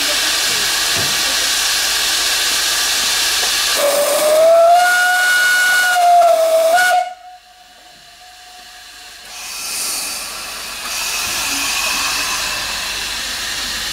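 Narrow-gauge saddle-tank steam locomotive, Corris Railway No.7, hissing steam, then sounding its whistle: one steady note that starts about four seconds in, rises slightly as it opens and lasts about three seconds before cutting off abruptly. A couple of seconds later the steam hiss returns and grows as the cylinder drain cocks blow steam.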